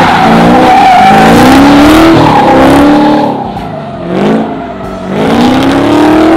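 LS3 6.2-litre V8 in a BMW E36 drift car revving hard in repeated rising sweeps as the car slides, with the rear tyres spinning and screeching on the asphalt. The engine eases off about three seconds in, then climbs again toward the end.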